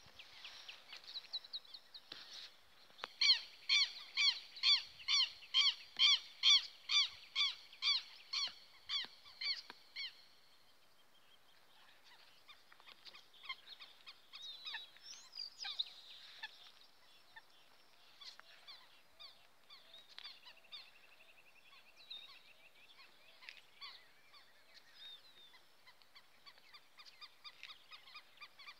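A bird calling loudly and repeatedly, about two short calls a second for some seven seconds, growing fainter before it stops about ten seconds in. Fainter, scattered bird calls follow through the rest.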